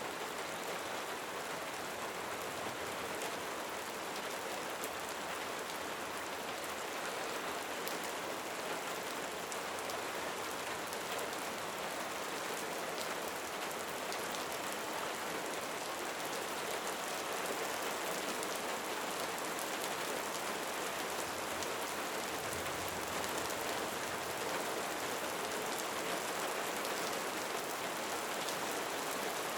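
Steady rain falling, a dense even hiss with faint scattered drop ticks. A faint low rumble comes in briefly about three-quarters of the way through.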